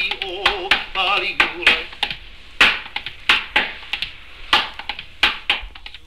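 A man's voice chanting a hula chant with a wavering pitch, over beats on an ipu gourd drum. The chant stops about two seconds in, and the gourd strikes carry on alone at about two or three a second.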